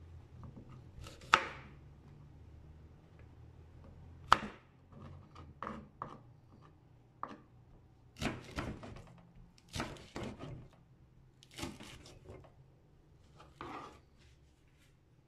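Kitchen knife slicing okra on a cutting board: irregular knocks of the blade striking the board, two sharp single ones in the first few seconds, then quicker runs of cuts in the second half.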